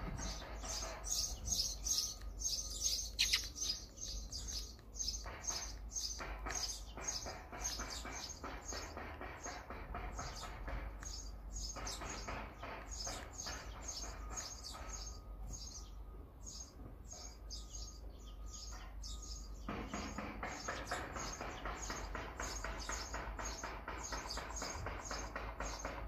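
Eurasian tree sparrows chirping, a rapid, continuous run of short high chirps several a second.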